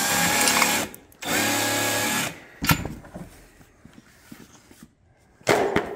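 Cordless ratchet running in two bursts of about a second each, spinning off the last nut that holds the engine to its wooden shipping board. A sharp knock follows, and a short louder clatter near the end.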